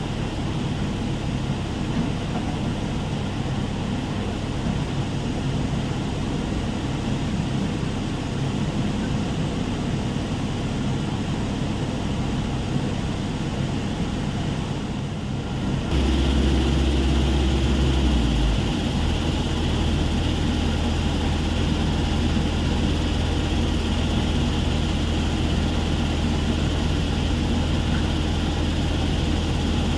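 Heavy machinery running steadily at a stone crusher plant, a continuous engine drone. About halfway it shifts abruptly to a louder, deeper drone.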